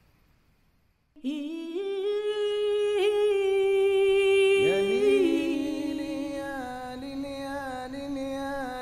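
Wordless flamenco singing: after about a second of near silence a single voice comes in, holding a long wavering note, then slides down to a lower held note a little past halfway.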